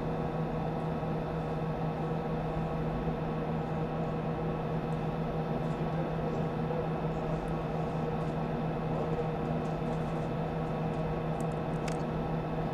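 Steady cabin noise inside a Soyuz spacecraft during the third-stage engine burn: an even hiss over a low drone with several held tones, and a few faint ticks near the end.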